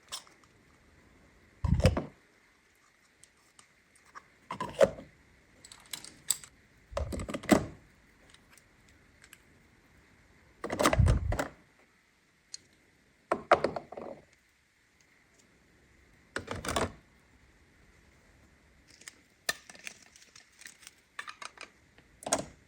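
Plastic toy playset pieces being handled and set down: separate knocks and clatters every few seconds, with lighter clicks between, over a faint steady high hum.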